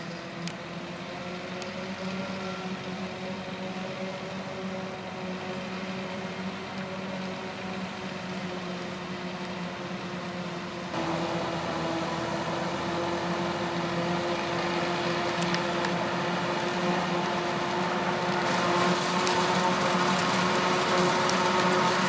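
Krone BiG X 530 forage harvester chopping maize, with a tractor running alongside: a steady machinery drone with a held hum, growing louder, with a sudden step up in level about eleven seconds in.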